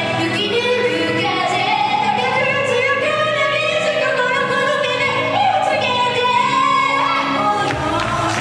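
Female voices singing a J-pop idol song over a loud backing track, recorded live from the audience.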